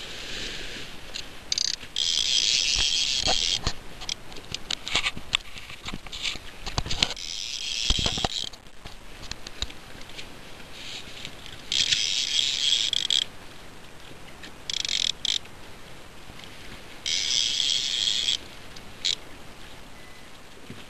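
Fishing reel's drag ratchet buzzing in about five bursts of a second or so as a hooked tope pulls line off, with scattered clicks and a knock between the runs.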